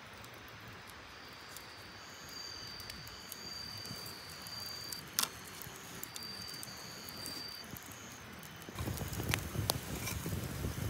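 A cricket trilling on one high, steady note in stretches of a second or two, with scattered sharp clicks, one louder click about halfway. Near the end a louder spell of rustling and clicking begins.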